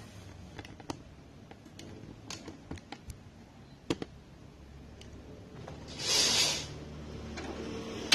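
Small irregular ticks and pops from oil heating in a wok on a gas stove. About six seconds in comes a brief louder hiss, and after it a low steady hum.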